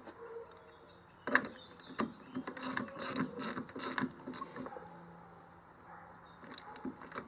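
Ratchet wrench clicking in quick short strokes for a few seconds, with a few more clicks near the end, as a battery cable clamp is tightened.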